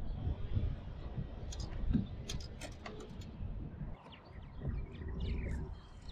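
Birds chirping over a steady low rumble, with a few short sharp ticks about two seconds in.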